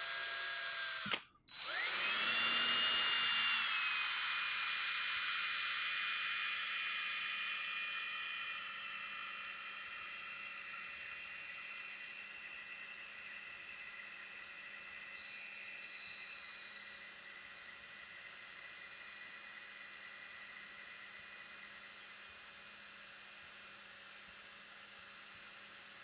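Cordless drill running with a mechanical pencil chucked in, spinning the pencil as it draws on paper. The motor whine stops for a moment about a second in, spins back up, and then runs steadily.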